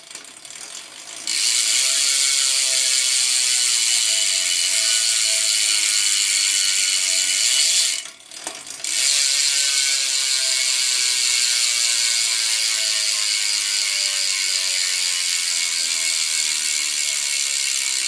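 Eastern bidirectional BMX rear hub freewheeling: the pawls click in a loud, fast buzz. It is set up with double, heavily tensioned springs and no grease. The buzz breaks off briefly about eight seconds in, then starts again and slowly winds down as the wheel coasts.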